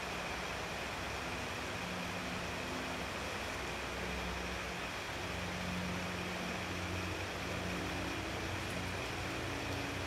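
Low, steady hum of a distant engine, its pitch wavering slightly, over a constant even hiss.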